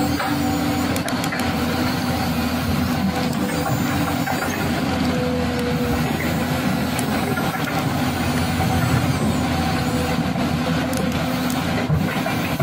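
Remote-control toy crawler excavator's electric motors and plastic gears whining as the boom and bucket move, a steady mechanical noise whose tones change pitch every few seconds as different motions start and stop.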